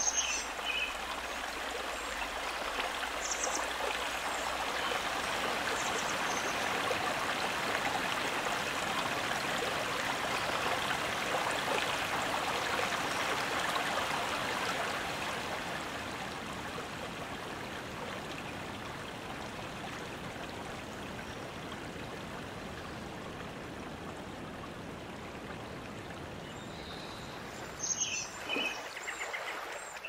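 A forest stream running: a steady rush of water that swells through the first half and slowly fades after about fifteen seconds. A few short bird chirps sound over it, most of them near the end.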